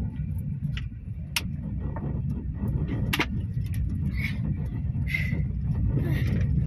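Car driving slowly, heard from inside the cabin: a steady low rumble of engine and road, with a few sharp clicks.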